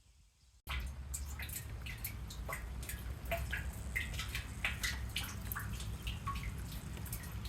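Water dripping and trickling, many quick irregular drips over a steady low rumble, starting suddenly about half a second in.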